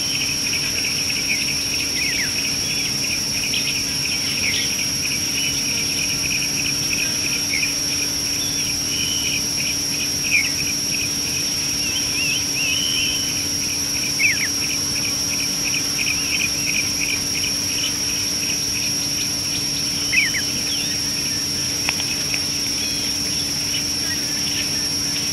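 Insects and crickets calling steadily, a high even drone over a fast chirping pulse, with a bird giving a few short falling calls now and then.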